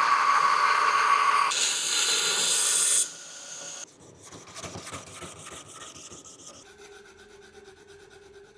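Abrasive work on a steel blade: a loud, steady rasping hiss for about three seconds, then a sudden drop to much quieter scratching and a faint hum.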